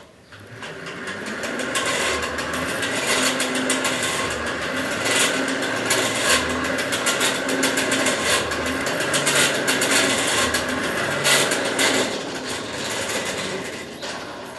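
Forge blower driving air into the fire to reheat the iron: a steady whirring air noise with a low hum, building up over the first two seconds and then holding.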